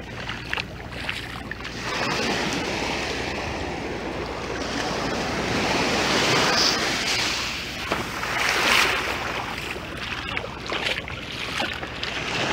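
Ocean surf washing up on a sandy beach, a steady rush of water that swells louder twice, with a low rumble of wind on the microphone.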